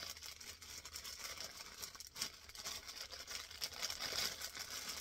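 Thin plastic bag crinkling and rustling irregularly as skeins of cotton yarn are handled and pulled out of it.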